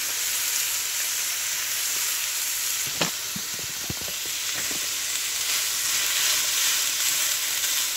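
Ground beef, chopped bacon, green pepper and onion sizzling steadily in a nonstick frying pan. Between about three and five seconds in, a spatula stirring the mixture knocks and scrapes against the pan several times, loudest at the first knock.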